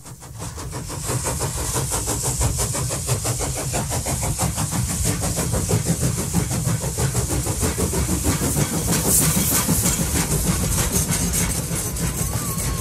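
Steam-hauled train in motion, heard from an open carriage window: a steady run of rapid, even beats over a low rumble and rushing air. It builds up over the first second.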